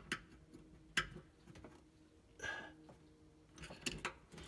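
Faint metallic clicks and a short scrape from a screwdriver working at an oven's lamp socket. There is a sharp click about a second in, a brief scrape midway, and a few light clicks near the end.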